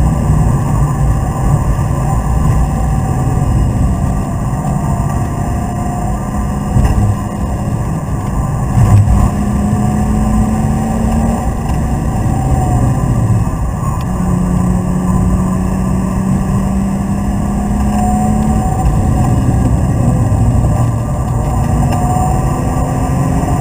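BMW Z3 2.8's straight-six engine pulling hard at track speed, heard from inside the cabin over a constant rumble of road and wind noise. The engine note holds, breaks off and changes pitch several times as the car goes through gears and bends, with a brief thump about nine seconds in.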